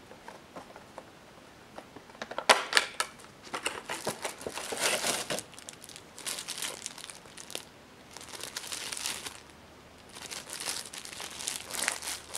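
Thin plastic packaging bags crinkling as hands pull a foam squishy toy out of its package and squeeze it through its clear wrap. The crinkling starts about two seconds in and comes in bursts with short pauses. The loudest burst is about two and a half seconds in.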